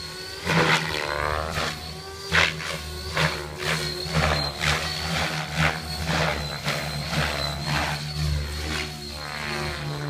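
Align T-Rex 700E electric RC helicopter in 3D aerobatic flight: a steady high motor whine under the main rotor, which whooshes in loud pulses two or three times a second as the blades bite through the manoeuvres.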